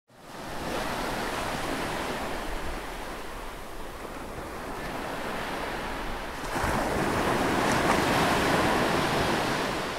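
Ocean waves washing in an even rush, fading in at the start and swelling into a bigger surge about six and a half seconds in.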